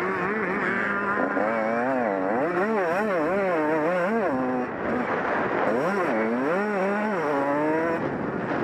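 Honda CR125 125cc two-stroke single-cylinder motocross engine heard up close from the rider's helmet, revving up and falling back over and over as the throttle is worked through the corners. The pitch drops suddenly a couple of times as it changes gear.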